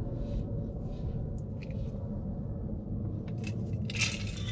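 Almonds and pecans tipped from a plastic measuring cup into a stainless steel mixing bowl, a short rattle about four seconds in, over a steady low rumble.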